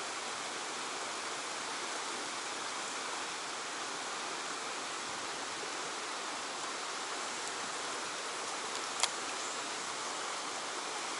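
Fast stream water rushing steadily over rock. A single sharp click about nine seconds in.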